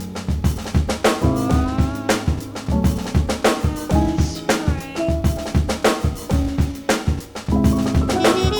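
Background music with a steady drum-kit beat and sustained melodic notes.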